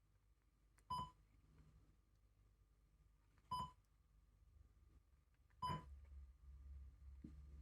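Bluetooth media player module beeping three times through its speaker, short electronic beeps about two seconds apart, as it is operated. A low steady hum comes in just after the third beep.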